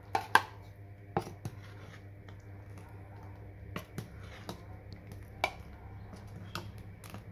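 Spoons clinking against a metal cooking pot while banana in coconut milk is stirred and added to: about ten sharp, scattered clicks over a low steady hum.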